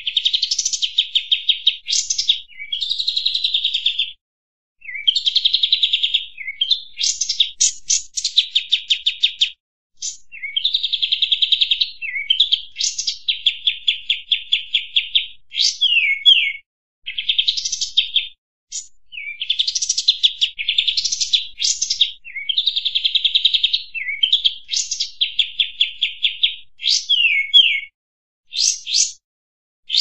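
Kampas tembak bird singing: fast, rattling phrases of rapidly repeated high notes mixed with short downward-sliding whistles, in runs of several seconds broken by brief pauses.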